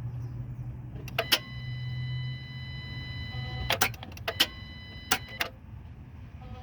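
Several sharp clicks in pairs, with a steady electronic warning chime from the car's dashboard sounding for about two seconds and then again for about a second; no engine is heard catching.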